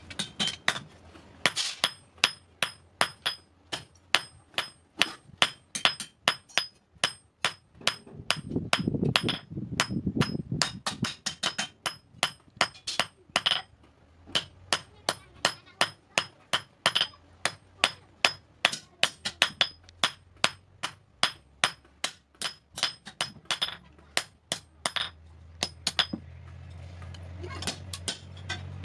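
Hand hammer striking red-hot iron on a steel anvil block, forging a scissor blade: a long run of quick, evenly spaced blows, each with a bright metallic ring. The blows stop for a moment about two seconds before the end, and then a few more follow.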